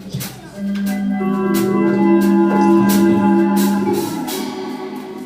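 Gospel church music: an organ holding sustained chords over regular percussion hits.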